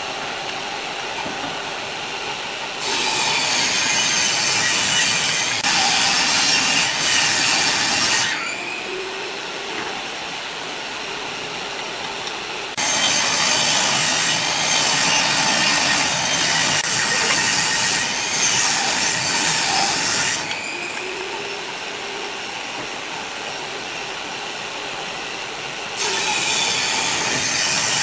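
Rough scraping and rubbing of a wooden spatula spreading glue across the faces of wooden blocks, in long stretches that start and stop abruptly, with a quieter steady background between them.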